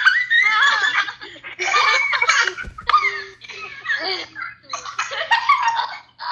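Several children laughing loudly and at length, high-pitched giggles and belly laughs overlapping one another.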